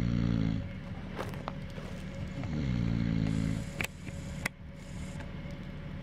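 A man snoring heavily in his sleep: one snore ends just after the start and a second runs from about two and a half seconds in, each a droning rasp that sinks in pitch as it goes. Two sharp clicks follow the second snore.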